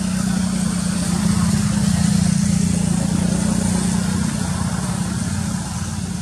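An engine running steadily with a low, even drone, and a steady high hiss above it.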